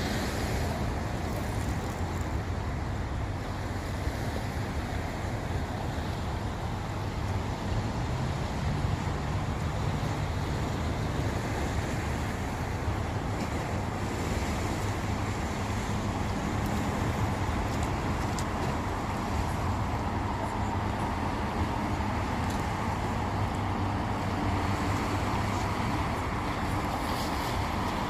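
Steady rush of road traffic, with wind on the microphone.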